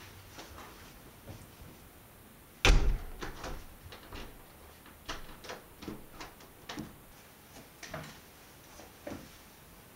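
A uPVC front door slams shut about three seconds in; this is the loudest sound, and it echoes briefly. A run of lighter, uneven footsteps and knocks follows on a hard floor.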